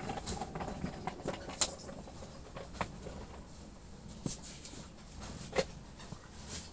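Scattered light clicks and taps, a few sharper ones spread through, over a low background: small handling noises.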